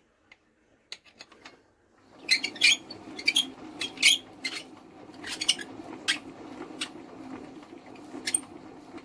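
Irregular sharp metallic clicks and squeaks from handling tools and ignition parts on a Norman flat twin engine, over a steady low hum that starts about two seconds in.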